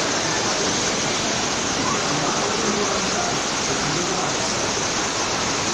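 Steady rush of water from a rapids raft ride, with faint voices mixed in.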